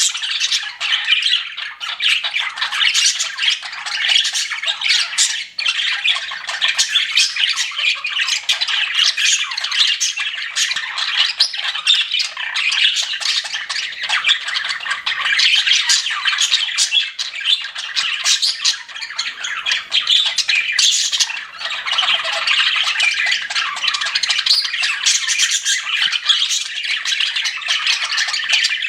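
A group of budgerigars chirping and chattering without a break, many short calls overlapping.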